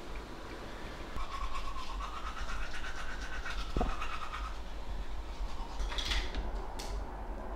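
Toothbrush scrubbing teeth in quick, scratchy back-and-forth strokes for several seconds.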